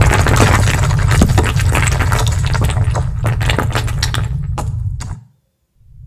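Earthquake landslide sound effect: a deep continuous rumble under dense crackling and clattering of sliding rock and earth. It fades out about five seconds in.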